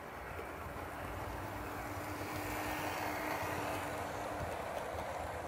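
Model train running along the layout track: a steady rumble of wheels on rail and motor hum that grows louder as the coaches pass close by, with a faint thin whine that stops about four and a half seconds in.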